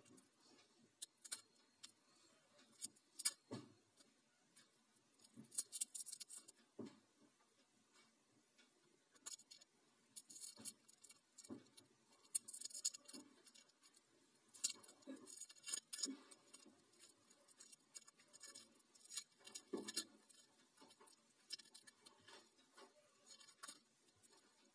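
Thin plastic film being peeled off a zero-watt bulb by hand: faint crinkling and crackling in scattered short bursts, with light clicks.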